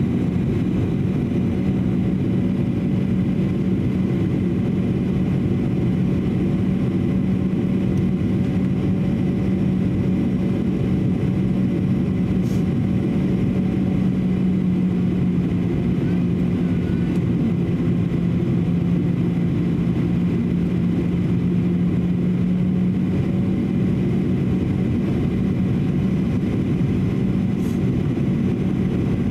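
Cabin noise inside a Boeing 737-800 airliner in flight: a steady rush of air and the drone of its CFM56-7B jet engines, with a constant low hum.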